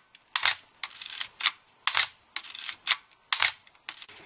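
Ricoh 35mm SLR with a vertical-travel curtain shutter, fired at 1/125 s and wound on three times in a row, about a second and a half apart. Each cycle is a sharp shutter click with a low thud, followed by the short rasp of the film-advance lever being wound to re-cock the shutter.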